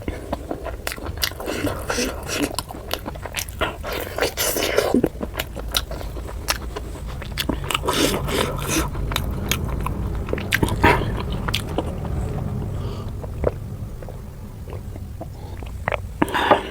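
Close-up eating sounds of a person chewing and biting puri with chicken curry: many short wet mouth clicks and smacks, thickest in the first half, with a low steady hum underneath later on.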